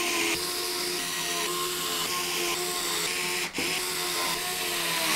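Cordless electric screwdriver driving long radiator screws through the fan frames into a 360 mm AIO radiator, its motor whining steadily. It stops for a moment about three and a half seconds in, then starts again.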